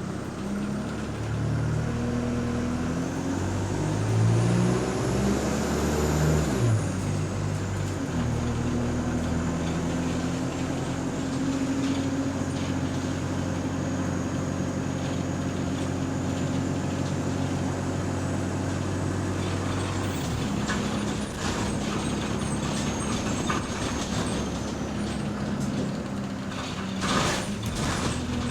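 A bus engine heard from inside the saloon, pulling away with its pitch climbing in steps through the gear changes, then holding steady at cruise before easing off about two-thirds of the way through. A high whine rises briefly early on, and there is a short clatter of rattles near the end.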